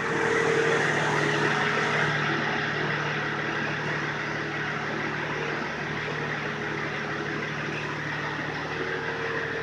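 A Range Rover P38 running: a steady mechanical drone with a constant hum, loudest in the first couple of seconds, then easing slightly.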